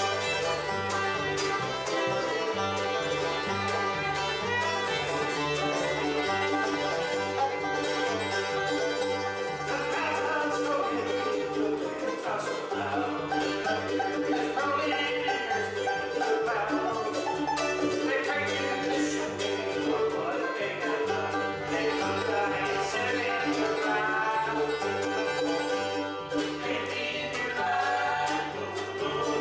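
Bluegrass band playing live: fiddle, five-string banjo, mandolin, acoustic guitar and upright bass. The bass plays steady alternating notes underneath.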